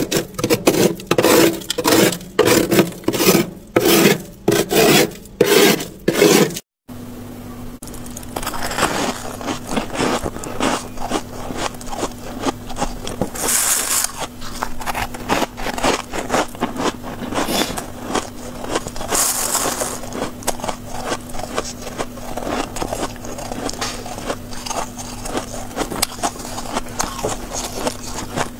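Rasping strokes of freezer frost being scraped off a freezer wall, about two a second, which cut off abruptly about seven seconds in. After that comes close-miked crackling and crunching of freezer frost being bitten and chewed, over a steady low hum.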